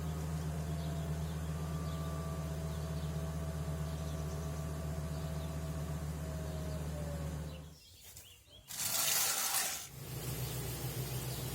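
RV main slide-out's electric motor running with a steady low hum as the slide retracts, cutting off about eight seconds in. About a second later a loud rushing noise lasts roughly a second, then a weaker low hum continues.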